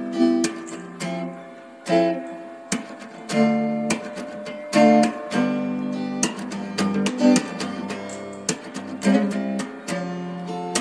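Background music of acoustic guitar, plucked and strummed chords.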